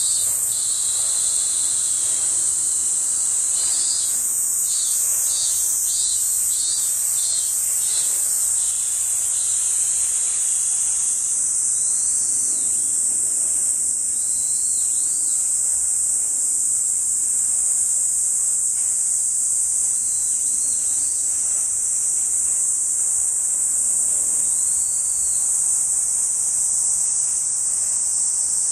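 A chorus of insects giving a steady, high-pitched continuous drone, with a second pulsing call, about one and a half pulses a second, over it during the first several seconds.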